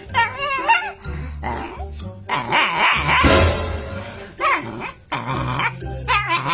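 A dog growling and snarling at its own reflection in a mirror, with short barks and a loud harsh snarl a little past halfway, over background music.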